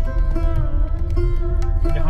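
Background music: an Indian-style instrumental with a plucked-string melody over a steady drone, with a low rumble underneath.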